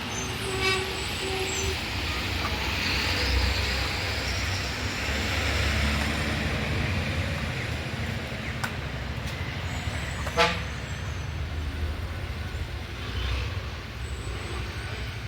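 Road traffic running steadily, with a vehicle horn tooting twice in quick succession near the start and a sharp, brief squeak about ten seconds in.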